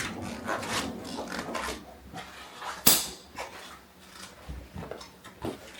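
Handling noises in a small room: a run of light, irregular knocks and rustles, with one sharp click about three seconds in.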